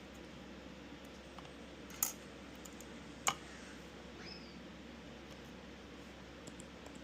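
Furniture-assembly hardware being handled and set into a panel: two sharp clicks or knocks a little over a second apart, with a few faint ticks.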